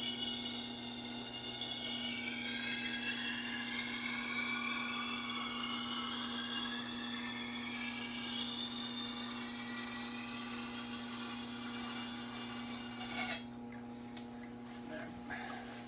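Santoku knife's steel edge being ground on a sharpening abrasive: a steady grinding hiss with wavering whistling tones that rise and fall. It stops abruptly about 13 seconds in, followed by a few light clicks.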